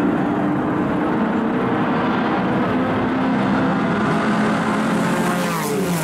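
A pack of classic racing cars, Porsche 911s among them, running together at speed, a dense mix of engine notes. Near the end the engine notes fall in pitch as cars pass close by.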